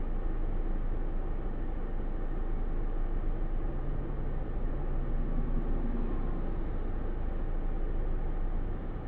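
Steady rumbling background noise over a constant deep hum, easing a little near the end.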